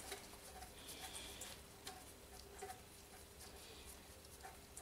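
Faint, irregular light clicks and ticks of hand-tool work: an 8 mm Allen key being worked on a loosened bolt in a diesel engine's timing-belt area.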